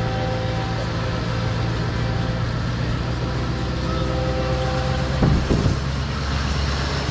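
Road train prime mover's diesel engine running steadily under way, heard from inside the cab with road noise. There are a couple of short knocks about five seconds in.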